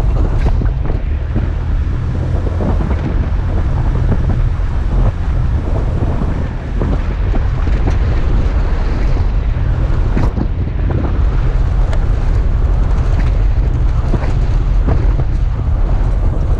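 Toyota FJ Cruiser driving on a deep-sand road: a steady low rumble with wind buffeting the microphone and frequent short knocks and rattles.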